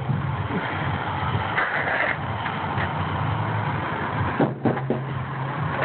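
A huge tyre landing flat with a short thud on concrete about four and a half seconds in, after being heaved up and pushed over in a tyre flip, over a steady low rumble.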